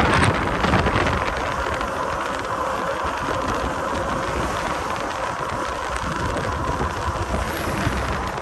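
Steady rush of wind and road noise from a lorry driving at highway speed, heard with the microphone held outside the cab window.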